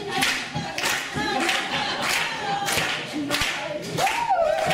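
Audience clapping along in a steady beat, a little under two claps a second, while voices sing a wordless rock'n'roll tune. A voice swoops sharply upward near the end.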